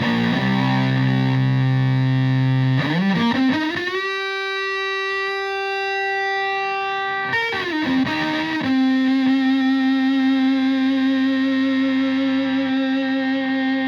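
Stratocaster with single-coil pickups through a Tone Bender MkII-style fuzz pedal and a Twin Reverb-style amp, playing long, heavily fuzzed sustained notes. A low held note slides up into a long high note about four seconds in, then slides down into another long note held with slight vibrato.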